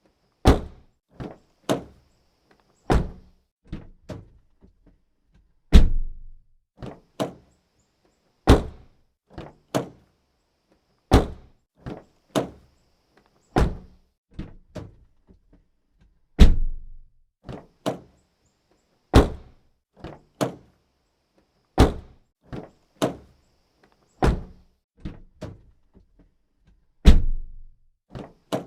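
Car doors opening and shutting in a series of separate sharp clunks and thuds, about twenty in all, with silence between them. The heaviest slams, with a low thud after the click, come about every eleven seconds.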